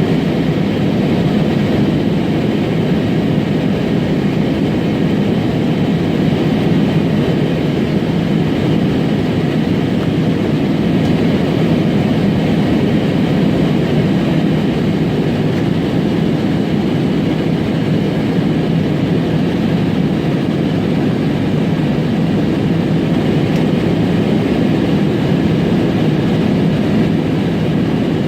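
Airliner cabin noise: the steady, even rumble of the jet engines and airflow heard from inside the passenger cabin in flight.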